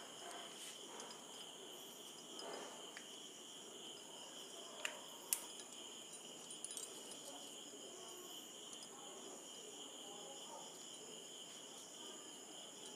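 Faint, steady chirring of crickets, with soft handling noise of dough being pressed into a metal modak mould and two sharp clinks about five seconds in.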